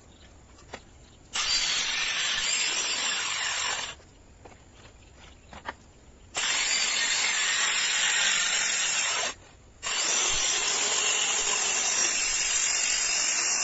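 Circular saw cutting wood in three spells: the first about a second in, lasting about two and a half seconds, the second after a pause of about two and a half seconds, and the third after a short break about ten seconds in. Each spell is an even, hissing cut.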